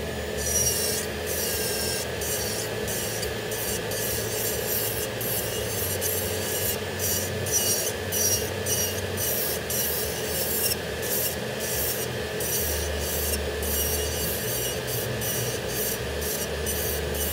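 Electric nail drill (e-file) running with a steady motor whine. Its bit grinds the nail edge at the cuticle in short, repeated gritty strokes, about two a second.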